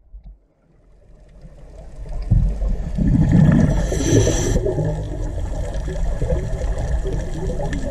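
Water noise recorded underwater: a low, rumbling wash with bubbling and gurgling. It swells in over the first two seconds and then stays loud, with a brighter hiss of bubbles about four seconds in.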